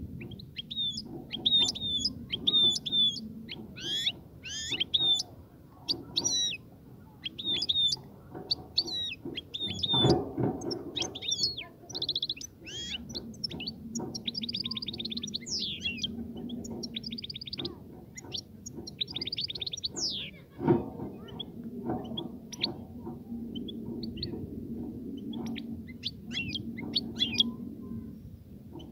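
European goldfinch singing its courtship song: a fast, continuous run of twittering notes with rattling trills about halfway through, over a low steady background noise.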